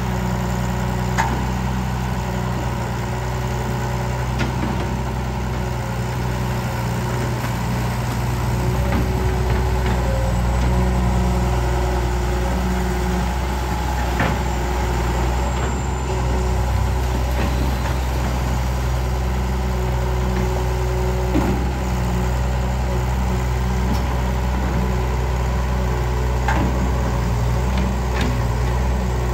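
Kobelco excavator's diesel engine running steadily while digging, with a few sharp knocks scattered through.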